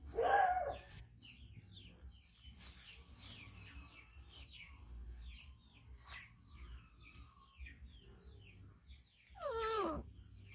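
Puppy whining, a loud yelp that falls in pitch, once at the start and again near the end, during rough play with a young monkey. Faint high chirping carries on in between.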